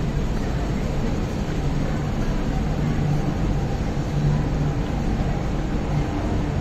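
MTR Kwun Tong Line Q-Train, built by CRRC Qingdao Sifang, pulling away from the platform and gathering speed, heard from behind glass platform screen doors: a steady rumble with a low hum.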